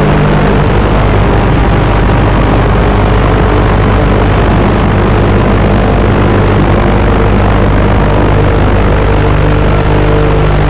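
Syma X8C quadcopter's upgraded X8HC motors and propellers droning steadily in flight, a dense noise with a few steady low tones.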